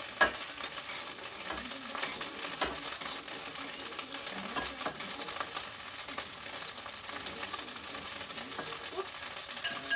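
Thin slices of beef frying in hot oil in a pan: a steady sizzle with scattered crackles and pops.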